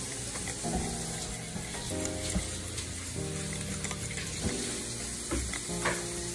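A wire whisk stirring pancake batter in a bowl, a wet swishing with a few light clicks, over background music whose chords change about once a second.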